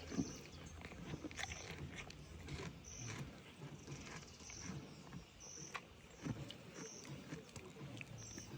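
Goats eating: irregular chewing and crunching with scattered sharp snaps and clicks. An insect chirps in short high pulses roughly every second and a half.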